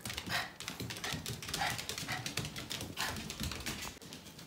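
Small Yorkshire terriers scrambling about on a laminate floor, their claws ticking in quick irregular clicks, with a few short dog noises among them.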